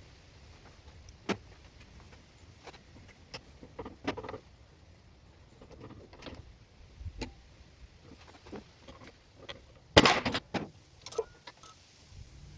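Scattered clicks and knocks of tools and metal parts being handled while the lathe is taken apart, with a louder clatter of several knocks about ten seconds in.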